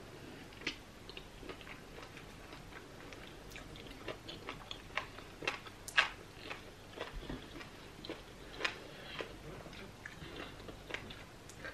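Close-miked chewing and sticky, wet mouth sounds of a person eating pounded yam with slimy okra soup: scattered soft clicks and smacks, the loudest about six seconds in.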